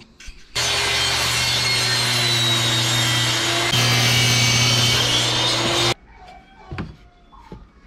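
Circular saw mounted under a DIY table, running and ripping a tapered leg from 16 mm phenolic-faced plywood as the board is pushed through. The loud steady cut starts about half a second in and cuts off suddenly near six seconds.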